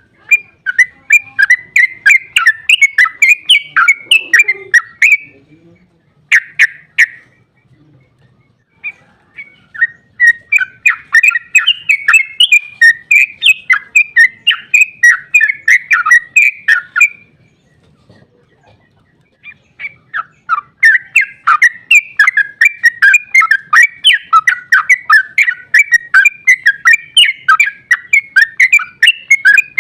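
Yellow-vented bulbul (trucuk) singing its long, rapid bubbling 'ropel' song, about four notes a second, in three long runs broken by short pauses.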